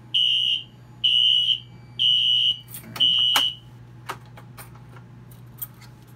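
Wheelock fire alarm horn giving four short, high-pitched blasts about a second apart, then falling silent. This is the fire panel's audible walk-test signal that the pull station has just been activated. A few mechanical clicks from the pull station come in between the later blasts.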